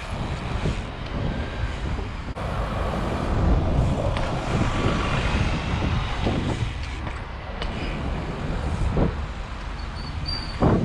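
Tyre rumble and wind buffeting on a moving action camera as a street trial bike rolls over rough concrete, with a few sharp knocks from the bike, the loudest near the end.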